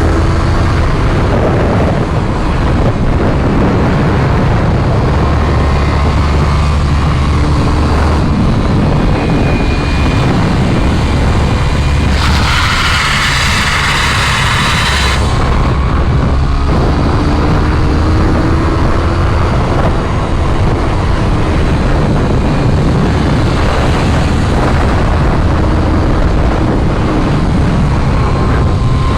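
Sport motorcycle riding at speed, with steady engine noise and heavy wind roar. About twelve seconds in, a loud scraping hiss lasts roughly three seconds: the motorcycle sliding on asphalt.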